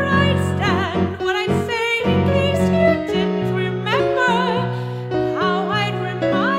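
A woman singing long held notes with wide vibrato over piano accompaniment.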